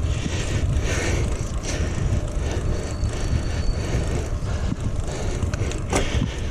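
Wind rushing over the microphone and tyre noise from a bicycle riding along a trail, with a sharp knock about six seconds in.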